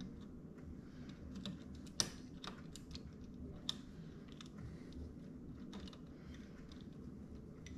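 Small screwdriver clicking and scraping on a plastic thermostat wall plate as its mounting screws are worked out: scattered light clicks, the sharpest about two seconds in and another near four seconds.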